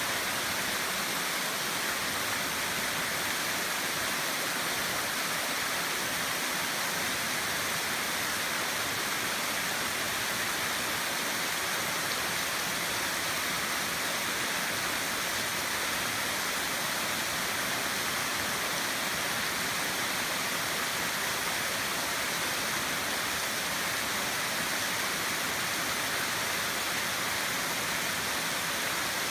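Waterfall: water pouring and splashing in a steady, even rush that stays the same throughout, with most of its sound in the upper, hissing range.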